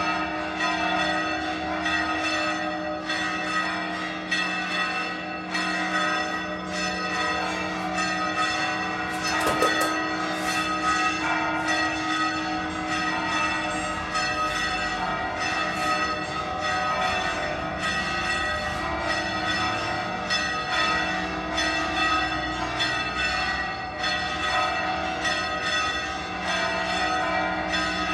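Church bells ringing the call to prayer, several bells struck over and over without a break, their ringing tones overlapping.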